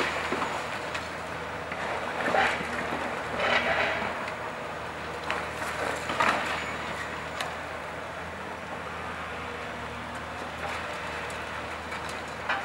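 Tracked excavator's diesel engine running steadily while its demolition jaws break up a concrete and brick building. Loud crunching crashes of breaking concrete and falling debris come about two, three and a half, and six seconds in.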